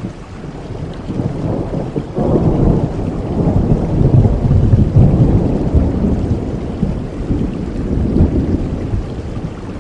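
A long rolling thunder rumble over steady rain. It builds about two seconds in, is loudest around the middle, and slowly dies away near the end.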